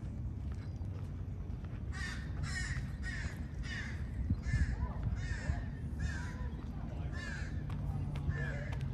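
A crow cawing over and over, about a dozen short caws in a quick, even series starting about two seconds in, over a steady low background rumble.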